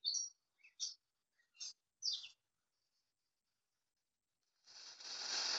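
Sound-effect recording of birds in rain playing back: four or five short, high bird chirps in the first two seconds or so, then after a silent gap a hiss of rain rises about four and a half seconds in and gets loud.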